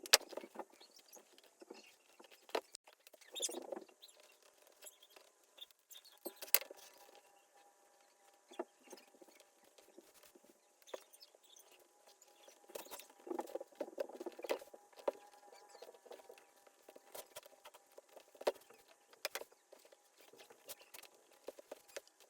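Hands working on an old leather baseball glove: irregular rustling, scratching and soft clicks as the leather is handled.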